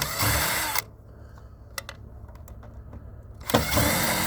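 Power screwdriver running in two short bursts, each about a second long, one at the very start and another about three and a half seconds in, backing screws out of the vacuum's housing.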